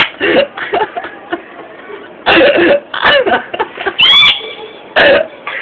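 A man making loud, silly cough-like vocal noises in four short bursts, one of them rising into a high squeal about four seconds in.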